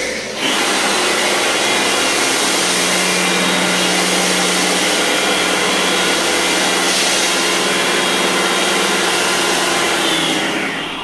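Lakoni Laguna 70 pressure washer running while its foam lance, fitted with a size 1.1 nozzle orifice, sprays foam: a loud, steady spray hiss over the motor's hum, cutting off near the end.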